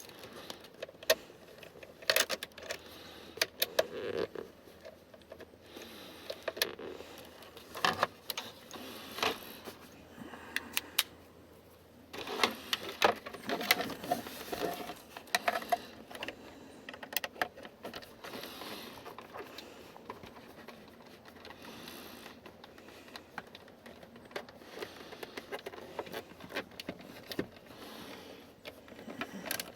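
Scattered clicks, knocks and rattles of hands working a car seat's plastic trim panel and its fittings into place, busiest about twelve to fifteen seconds in.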